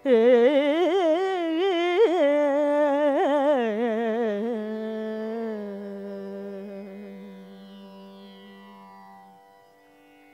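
A woman singing a Carnatic vocal line in raga Hemavati, with fast oscillating ornaments on each note, then settling onto a long held note that fades away. A steady drone sounds underneath.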